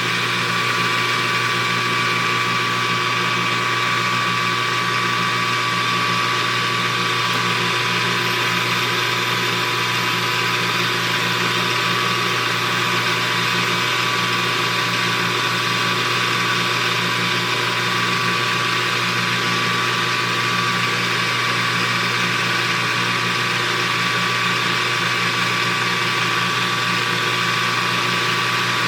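Small metal lathe running steadily at about 1400 rpm while a high-speed steel tool bit takes a turning cut. It is an even mechanical drone with a steady high whine.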